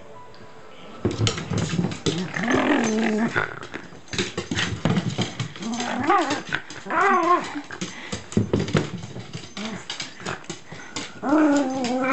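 Shiba Inu growling and whining in play while it mouths a roll of packing tape, in three drawn-out, wavering bouts. Short clicks and scuffs come between them.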